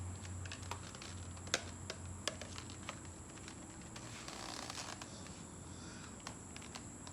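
Faint rustling and small scattered clicks of a child's bike helmet strap being handled and buckled, with one sharper click about a second and a half in.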